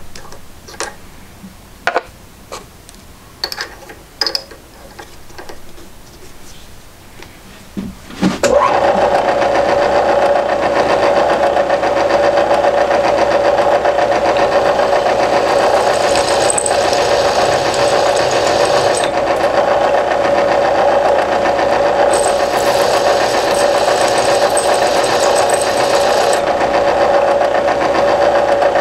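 A few scattered clicks and knocks, then about eight seconds in a small electric motor starts and runs steadily with a constant hum.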